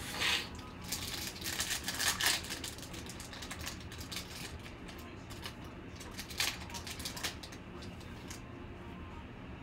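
Foil wrapper of a trading-card pack crinkling as hands tear it open. There is a cluster of crinkles in the first couple of seconds and another short burst about six seconds in.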